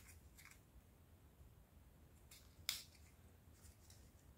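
Near silence: room tone, with a few faint ticks and one short sharp click about two and a half seconds in, from small craft materials being handled.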